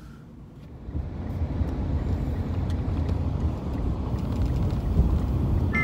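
Car cabin noise: a low rumble of engine and road that rises about a second in and then holds steady while the car is driven.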